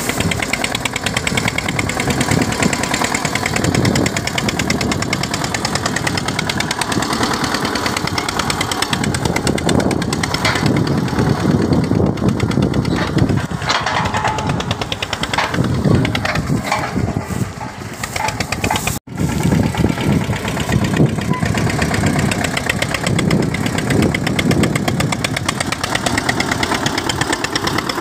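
Eicher 242 tractor's diesel engine running steadily as the tractor drives, with a brief break about two-thirds of the way through where the recording cuts.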